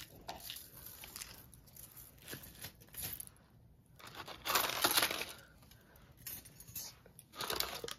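Faint clattering and clinking of bracelets and a plastic storage bin being rummaged through, with a louder burst of rattling about halfway through.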